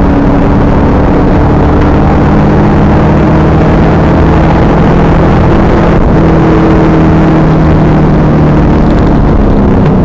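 Pontiac Trans Am Firehawk's LS1 V8 running hard at steady revs on track, its note holding nearly level and sagging a little near the end. Heard from inside the car, overloaded and distorted, with heavy road and wind noise.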